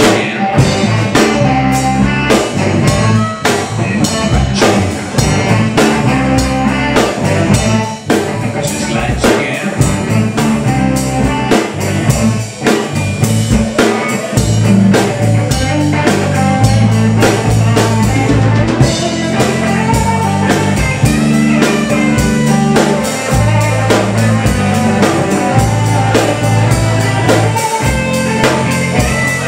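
Live blues band playing: electric guitar over a drum kit keeping a steady beat.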